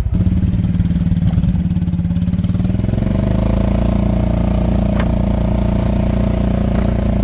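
Small gas golf cart engine running under load as its wheels spin for traction on snowy, frozen ground. About three seconds in it settles into a steady, even run.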